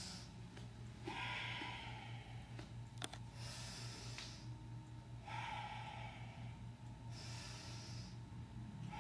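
A woman breathing audibly in a paced Pilates rhythm, in-breaths and out-breaths alternating about every two seconds as she pulls and releases reformer straps in bicep curls. One sharp click comes about three seconds in, over a steady low hum.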